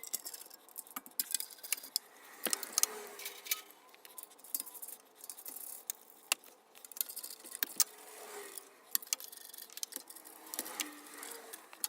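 Irregular light metallic clinks and rattles, scattered sharp clicks throughout, as hard parts or tools are handled and set down.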